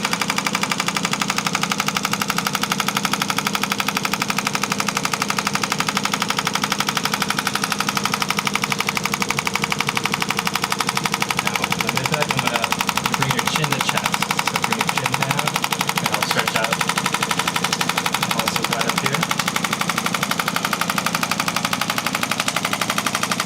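Radial shockwave therapy handpiece firing a rapid, steady train of pulses, set at low intensity at the start of a treatment.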